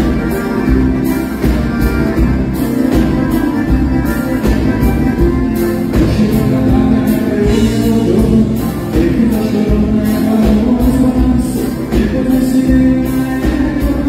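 Live band playing a xote on accordion, electric guitar, bass guitar and drum kit, with singing over a steady drum beat.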